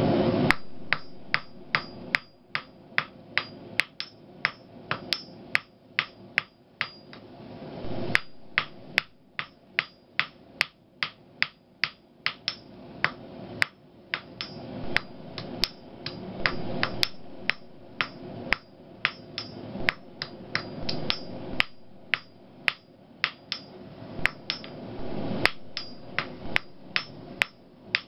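Blacksmith's hand hammer forging 12 mm round steel stock on an anvil: a long run of sharp, ringing metal blows about two a second, with a few brief breaks.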